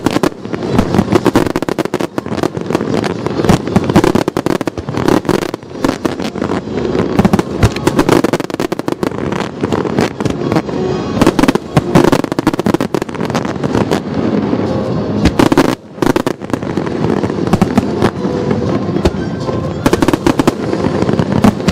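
Large fireworks display: a dense, continuous barrage of shells and comets bursting and crackling, many bangs a second, with a brief lull about 16 seconds in.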